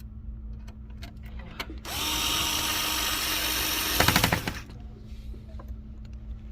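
Small electric screwdriver running steadily for about two seconds as it drives a screw, then a quick run of rapid clicks as it stops. A few light handling clicks come before it.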